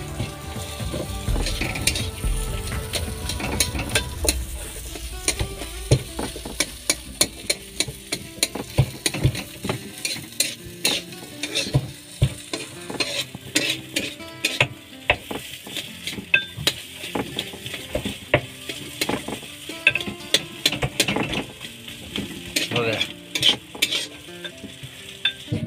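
A spatula stirring and scraping potato mash as it fries in oil in a black kadai, with many quick knocks and scrapes against the pan over a steady sizzle. A low rumble underneath dies away about ten seconds in.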